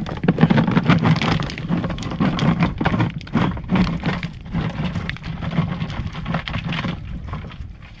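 Sea urchins and samong shells tipped out of a plastic container, clattering and rattling onto reef rock in a dense run of knocks that thins out near the end.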